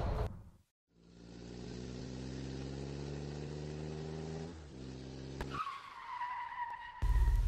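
Vehicle sound effects: an engine running with its pitch slowly rising for a few seconds, then a high tire squeal that falls slightly in pitch. A loud noisy burst cuts in near the end.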